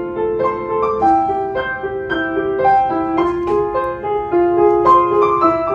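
Background piano music: a melody of struck notes with chords underneath.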